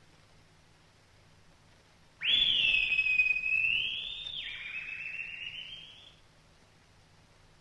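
A bird of prey's high, whistled cry: one loud call about two seconds in that dips in pitch and climbs back before cutting off, followed by a fainter rising call that fades away.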